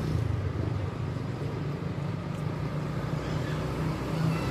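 Road vehicle engine running with a steady low hum, heard from the roadside amid traffic noise.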